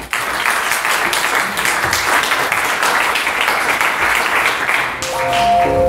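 Audience applauding: many hands clapping in a dense, steady patter. Near the end the applause thins as held electronic music notes come in.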